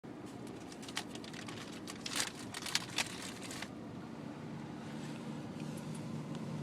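Steady low road drone inside a moving car. Over it comes a flurry of crinkling clicks and rustles, which stops suddenly a little over halfway through.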